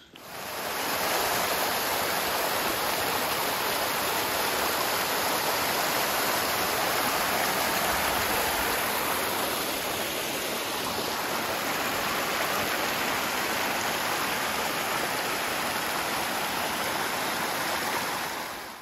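Fast mountain water rushing over rocks, a steady even rush that cuts in and cuts off abruptly.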